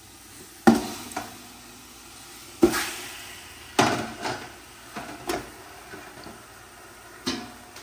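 Large pieces of raw pork hock dropped one after another into a big stainless steel stockpot, each landing with a heavy thud on the metal. There are three loud thuds and several lighter knocks between them.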